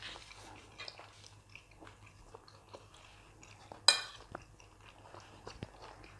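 Close-miked chewing and biting of a meal of jollof rice and pork chops, with soft scattered mouth clicks. Just before four seconds in, one sharp clink of cutlery on a plate.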